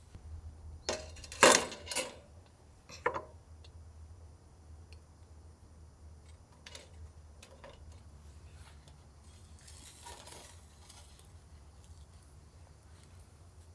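Metal cookware and utensils clinking: three or four sharp clinks about a second in, then faint occasional ticks, over a low steady hum.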